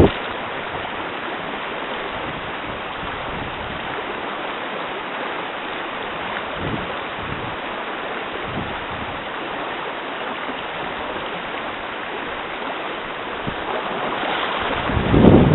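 River water rushing steadily over shallow rocky riffles. Near the end a low buffeting of wind on the microphone rises over it.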